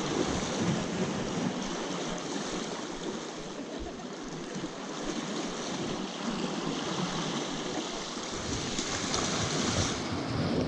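Sea surf washing against the rocky shore, a steady wash of water.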